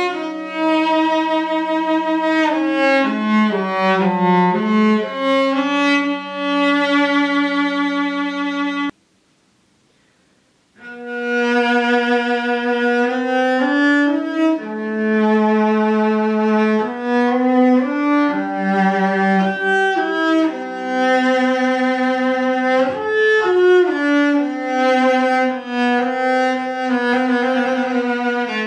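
Solo cello playing a bowed melody of sustained notes, first on a roughly 200-year-old German cello; the sound stops for about two seconds around nine seconds in, then the melody goes on on a 10-year-old Korean-made cello.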